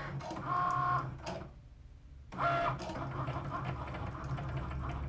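Cricut Maker's motors whirring as the machine moves the heated Foil Quill over the foil and writes the design. A high motor whine comes in short runs, stops briefly about a second and a half in, then gives way to steady whirring and rattling of the carriage.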